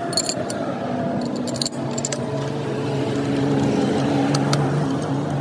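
Light metallic clinks and clicks of a hand wrench and steel bearing caps on a truck differential carrier being bolted together. Underneath runs a steady engine hum that grows a little louder.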